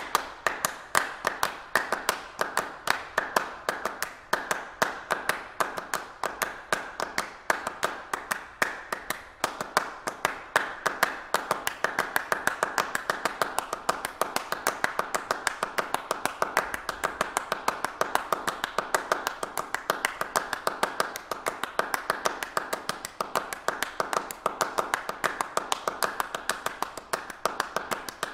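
A group of people clapping: steady applause, a dense run of overlapping hand claps that keeps on without a break.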